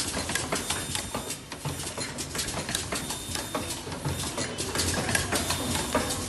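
Earloop welding machine running, with rapid mechanical clicking and clatter throughout and a short low hum recurring every two seconds or so.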